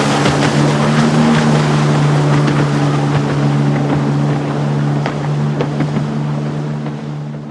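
Jet ski engine running at a steady pitch with a hiss of water and spray, the sound easing away near the end as it moves off.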